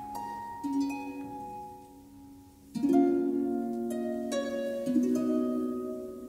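Concert harp playing single plucked notes and chords, each ringing on and fading, with a loud full chord about three seconds in.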